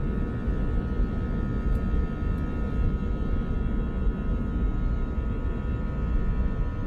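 Steady cabin noise aboard an Airbus A321 with its jet engines running: a low rumble under several steady whining tones.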